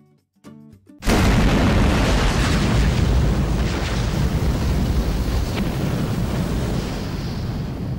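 An explosion sound effect: a sudden loud boom about a second in, then a long, deep rumble that slowly dies away. A couple of short plucked musical notes come before the boom.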